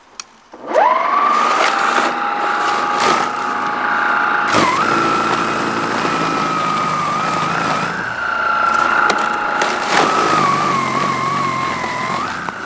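Einhell GE-ST 36/40 Li E-Solo 36V brushless cordless snow blower starting up about a second in with a rising whine, then running with a steady high whine. The whine wavers and dips in pitch under load as the machine is pushed into deep snow, with a few sharp knocks along the way.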